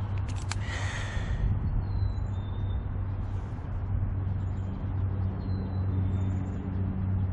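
Steady low rumble of distant road traffic, with a brief rasping noise about half a second in.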